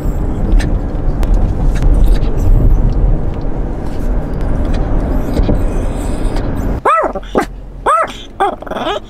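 Steady low rumble of road noise inside a moving car's cabin. From about seven seconds in, a dog whines in three short, high cries, each rising and falling, about one a second.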